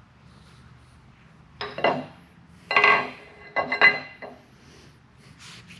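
Metal lathe tailstock parts, a hand wheel and a graduated collar, clinking and knocking together as they are handled, in three short bursts of clatter with a brief metallic ring, about two, three and four seconds in.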